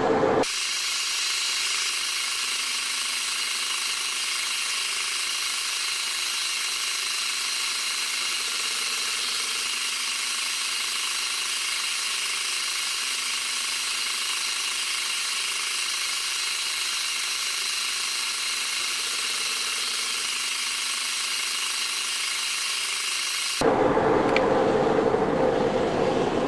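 Metal lathe running steadily with a high whine.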